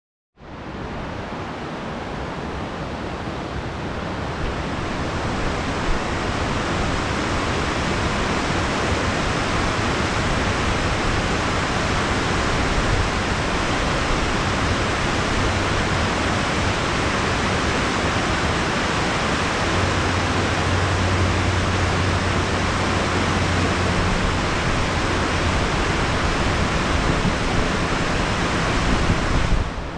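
River water pouring over a low concrete weir: a steady rush of white water.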